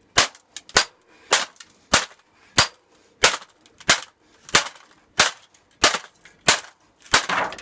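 A laptop being struck hard over and over, about a dozen sharp cracking blows at a steady pace of roughly one every two-thirds of a second.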